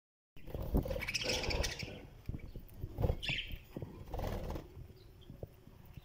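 Budgerigars chirping in a few short bursts, over a run of light knocks and clicks.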